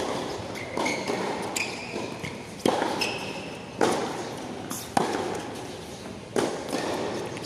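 Tennis rally: about seven sharp pops of racket strikes and ball bounces, roughly one a second, echoing under the hall roof, with short high squeaks in between.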